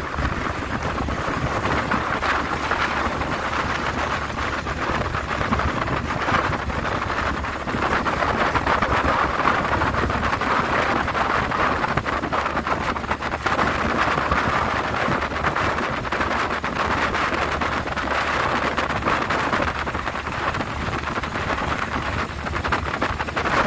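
WW2 Jeep's four-cylinder side-valve engine running as it drives along at road speed, heavily covered by wind rushing over the open vehicle and buffeting the microphone in a steady noise.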